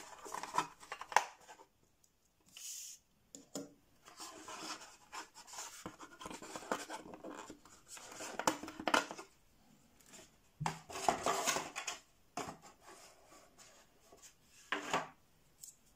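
Hands pulling a Bluetooth earpiece and its USB charger out of a molded packaging insert: on-and-off scraping and rubbing with small clicks.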